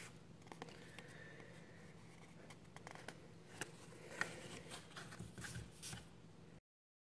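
Faint handling sounds of labeling thermostat wires: small clicks and paper rustle as a thin screwdriver works at the wire terminals and the paper wire labels are handled, with two sharper ticks about three and a half and four seconds in. The sound cuts off abruptly to silence near the end.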